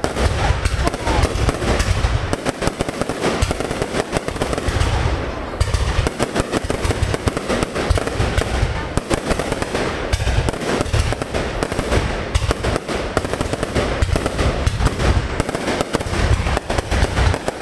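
Aerial fireworks display in full swing: dense, continuous crackling and popping with deep booms from bursting shells that swell and ease in waves every few seconds.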